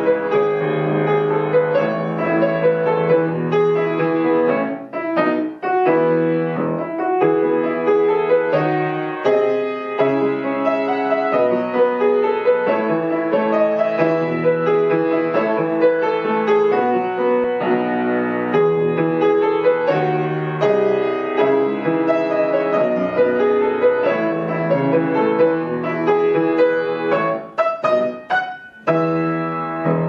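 Solo grand piano playing a flowing piece over a repeating low accompaniment. Near the end come a few short chords with breaks between them, then a last chord struck and left ringing.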